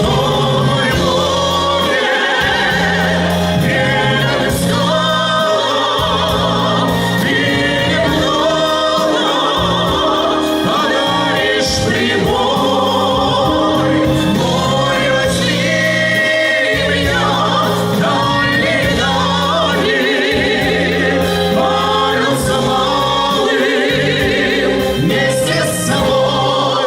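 Music of a Russian pop song between its verses: steady bass notes under a wavering, sustained melody line that sounds like singing, with no words.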